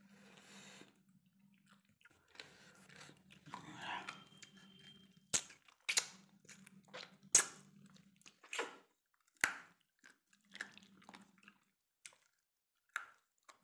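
Close-up chewing of chicken and roti, with several sharp crunches in the middle of the stretch as chicken bone is bitten and cracked between the teeth.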